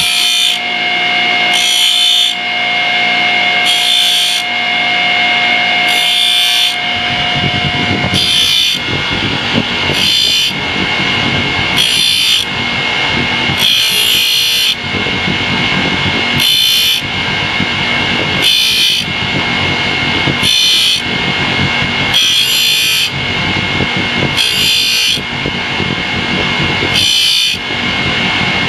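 Grinding wheel running steadily while the teeth of a steel hole saw are ground one at a time: a short grind about every two seconds as each tooth is touched lightly to the wheel, sharpening its edge.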